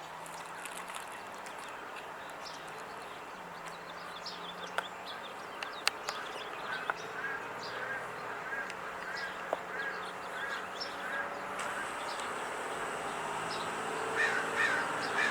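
Wild birds calling outdoors: scattered short chirps, a steady run of about eight evenly spaced calls midway, and louder calls near the end.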